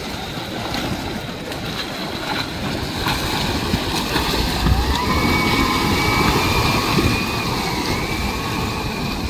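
Water rushing and sloshing as a small boat powered by a Momentum M10 electric outboard runs past at speed, growing louder toward the middle. About halfway, a thin electric motor whine rises in pitch and then holds steady.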